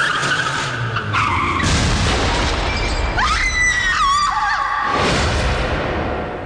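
Truck tyres screeching in a long skid on a wet road: several squealing tones that hold, slide up and waver over a rushing noise, dying away near the end.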